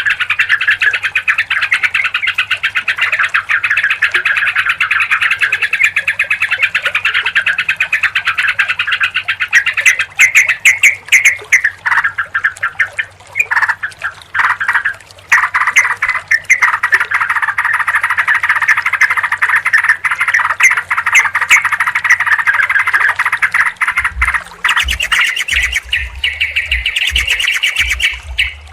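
Yellow-vented bulbuls (trucukan) calling together in a dense, continuous chatter of rapid bubbling notes, which breaks up into separate phrases about halfway through before the chorus picks up again. Low thumps are heard near the end.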